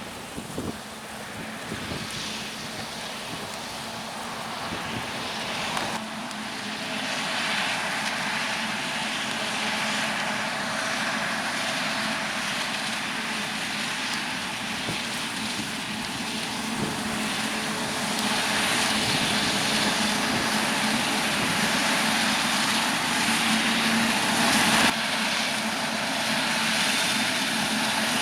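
Diesel engines of a forage harvester and tractors working a maize harvest: a steady drone that grows louder through the middle, changing abruptly about a fifth of the way in and again near the end.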